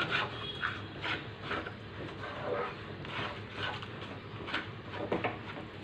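Black plastic slotted spatula scraping and stirring a thick masala-and-curd paste in a nonstick kadai. Short scrapes come at irregular intervals over a soft, steady frying hiss as the masala is fried (bhuna) after the curd goes in.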